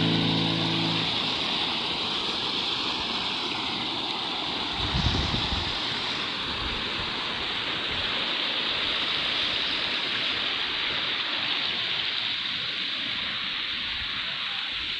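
Steady rush of flowing stream water, with one brief low thump about five seconds in.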